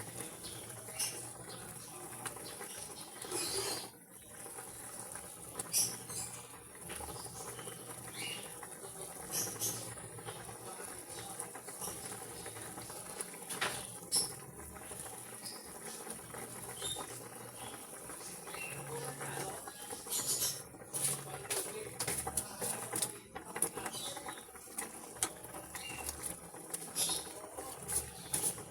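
Cooking in a pan: a steady crackle with frequent small clicks and taps throughout.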